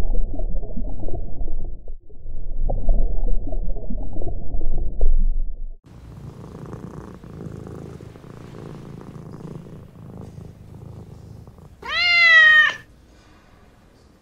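Water gurgling low and rough for the first six seconds or so. Then a grey Scottish Fold cat purring steadily, and one loud meow, a little under a second long, about twelve seconds in.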